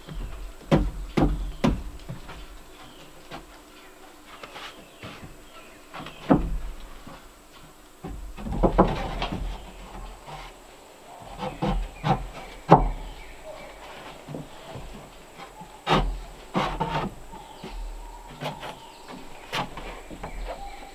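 Irregular wooden knocks and clatter of boards being handled and set onto a wooden cabinet frame, with small clusters of bumps now and then.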